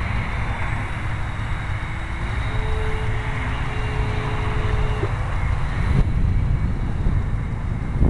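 Wind buffeting the microphone, with the faint whine of the foamboard RC plane's brushless electric motor under power. The whine rises in pitch about two seconds in and cuts off sharply about five seconds in.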